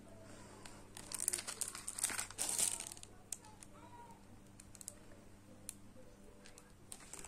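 Clear plastic packaging of earring cards crinkling as it is handled, in a cluster of crackles about one to three seconds in, then a few faint scattered crackles.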